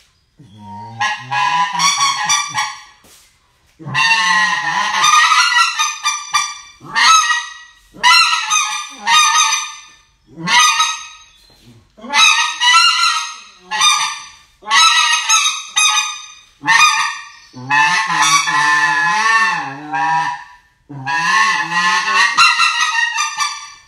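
Riceland duck call blown in a string of loud, honking quack runs, about eleven of them with short breaks between.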